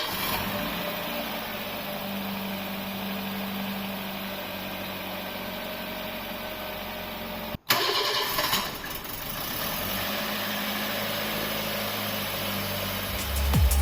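Freshly rebuilt Toyota 1SZ-FE 1.0-litre inline-four engine running steadily at idle. It is heard in two takes split by a cut about halfway through, and the second take opens with a brief louder surge.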